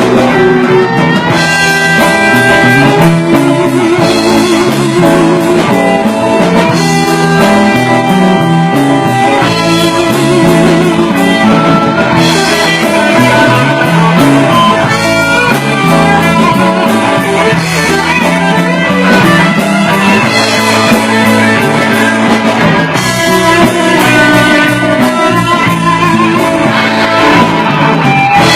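Live rock band playing an instrumental passage with no vocals. A guitar leads with held, wavering notes over bass and drums.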